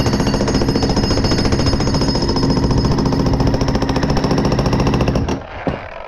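Hilti electric jackhammer pounding a concrete slab in rapid, continuous blows, stopping about five seconds in.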